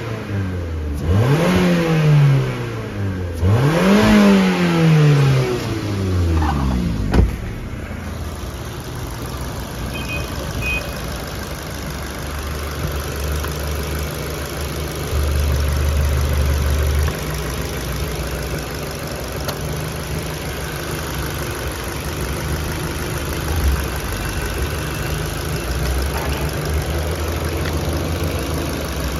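Ford Focus II 1.6-litre HWDA petrol four-cylinder engine revved in three short blips, each rising and falling back, then settling about seven seconds in to a steady idle.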